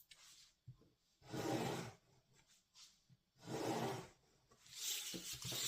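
Cardstock being creased by hand, fingers rubbing and scraping along the folds in three strokes, the last one longest.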